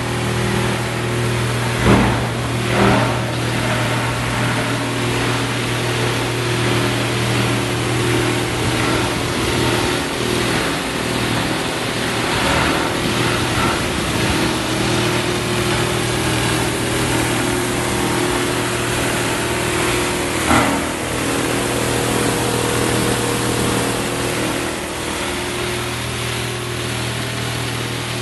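SWP series plastic crusher (granulator) running: a steady motor hum under a dense grinding noise. A few sharper knocks stand out, two close together about two seconds in and one about two-thirds of the way through, and it gets a little quieter in the last few seconds.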